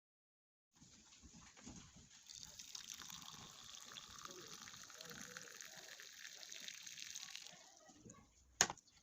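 Liquid pouring steadily for about five seconds, followed by a single sharp click near the end.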